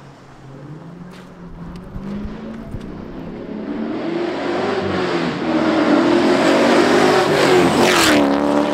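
LS V8 in a swapped Nissan 240SX accelerating hard toward and past, its note climbing and growing louder, with one dip in pitch about halfway. It is loudest as it goes by near the end, then drops away sharply.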